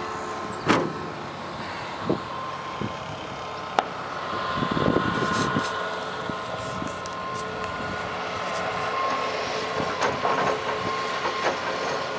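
Engine running steadily at a constant pitch, with several sharp knocks and clanks and a louder rough stretch about five seconds in.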